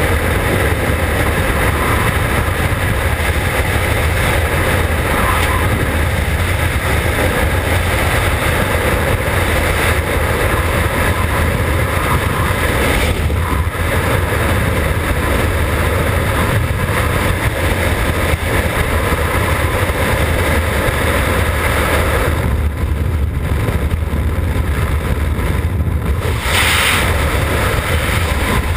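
Freefall wind rushing over a skydiver's camera microphone: a loud, steady, deep buffeting noise, with a short brighter rush about two seconds before the end.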